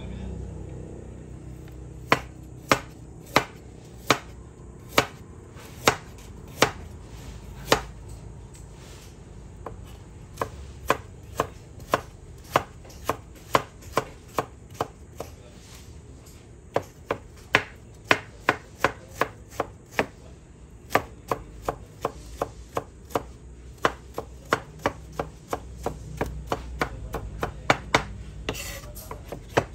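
Chef's knife chopping ginger on a wooden cutting board: separate sharp knocks under a second apart at first, then a quicker, steady run of chops from about ten seconds in.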